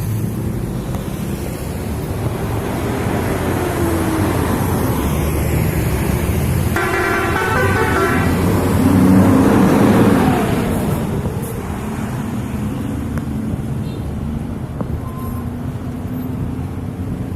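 Road traffic with a bus passing close: about seven seconds in, a multi-tone telolet bus horn plays a quick tune of changing notes for about a second and a half, then the engine noise swells as the bus goes by and its pitch falls away.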